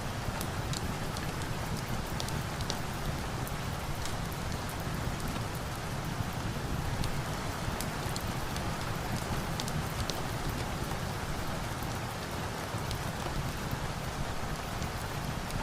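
Steady rain falling, an even hiss with a low rumble underneath, dotted with scattered sharp crackles and pops of a log fire.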